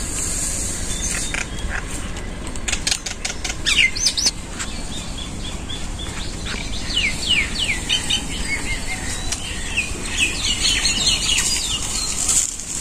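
Small birds chirping in a rapid run of short, quick calls, with a cluster of sharp clicks in the first few seconds and a steady high hiss underneath.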